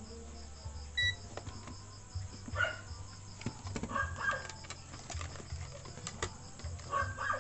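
A short electronic beep from a digital multimeter about a second in, over a low steady hum, with a few short, faint calls in the background.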